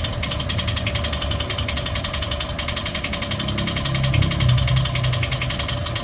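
Toyota 1NR-FE 1.3-litre four-cylinder engine running with a rapid, even ticking clatter over its hum, the abnormal engine noise of this roughly 400,000 km engine that is being troubleshot in its timing chain and valve train.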